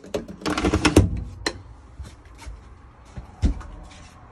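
Handling noise: a quick run of clicks and rattles for about the first second, a single click, then one knock about three and a half seconds in.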